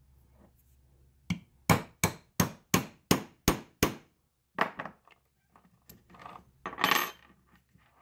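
A hammer tapping a small steel die used as a punch, driving the rivet pin out of a bicycle chain link on a wood block. About eight sharp metallic strikes at roughly three a second, then a few lighter taps.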